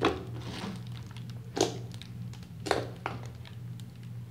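Homemade slime being pressed and poked by hand on a stone countertop, giving three sharp pops: one at the start, then two more about a second apart. A steady low hum runs underneath.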